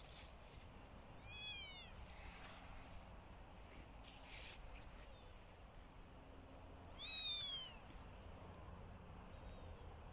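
Kitten meowing twice: two short, high-pitched mews that fall in pitch, about a second in and again, louder, about seven seconds in.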